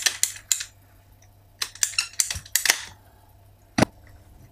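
A hand pipe cutter working on plastic PEX pipe: a run of sharp clicks at the start, another cluster around the middle, then one louder snap near the end.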